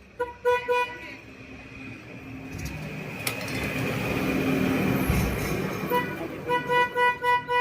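A motor vehicle going by, its rushing engine and road noise swelling over about four seconds and then fading. A rapid, repeated beeping tone stops just after the start and comes back near the end.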